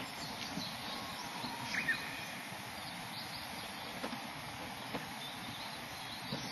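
Small birds chirping now and then over a steady hiss, with a few light knocks.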